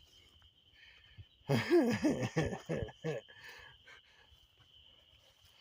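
A man's voice for about a second and a half, starting about a second and a half in, with no clear words. Under it runs a steady, thin, high-pitched chirring.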